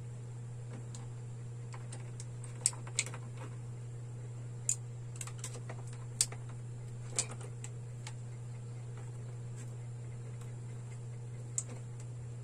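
Sharp, scattered clicks and ticks of pliers and electrical wire being handled at a plastic junction box, about half a dozen at irregular spacing, over a steady low hum.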